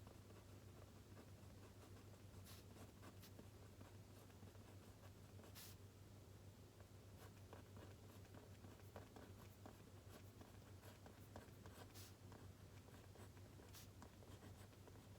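Faint scratching and ticking of a pen writing on paper, in irregular strokes over a steady low hum.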